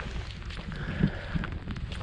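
Wind buffeting the microphone: a steady low rumble, with a few light clicks and a faint high tone for about a second in the middle.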